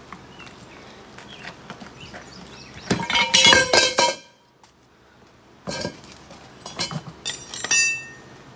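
Steel tire spoons clanking and ringing against a steel wheel rim as the tire is pried off: a dense run of metal strikes about three seconds in, then a few more scattered clanks near the end.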